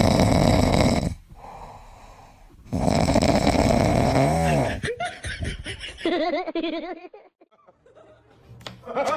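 Golden retriever puppy snoring in its sleep: two long, loud snores a couple of seconds apart, the second ending in a whistling rise and fall. A person laughs briefly after them.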